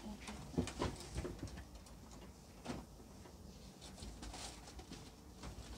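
Scattered rustling and light knocks of clothes and plastic bags being handled and packed, with a cluster of sharper ones in the first second and a few more near three seconds and toward the end.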